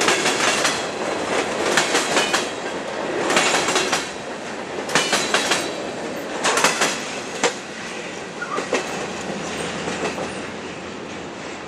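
Freight train of covered hopper cars rolling past at trackside, its wheels clicking in quick groups over the rail joints with a steady rumble between. The sound fades as the last car goes by and the train moves away.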